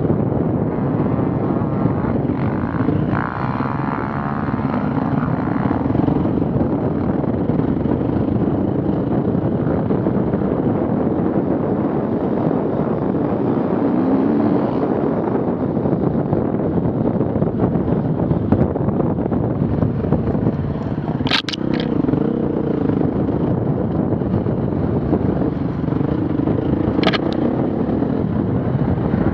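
Off-road vehicle engine running steadily, with two sharp clacks in the second half.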